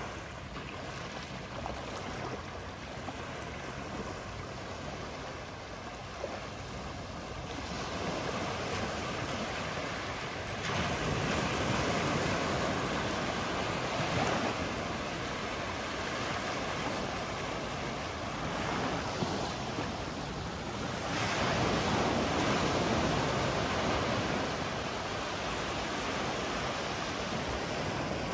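Surf washing onto a sandy beach in steady noise that swells louder as waves come in, once about ten seconds in and again a little after twenty seconds.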